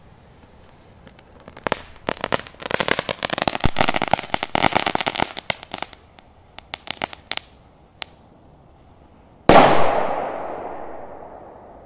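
A Korsar-4 firecracker's lit fuse crackles and spits in quick irregular clicks for several seconds. Then, about nine and a half seconds in, it goes off with a single sharp bang that rings out and fades over a couple of seconds.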